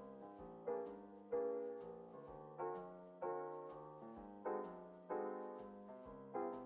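Background piano music: gentle chords struck about every two-thirds of a second, each fading before the next.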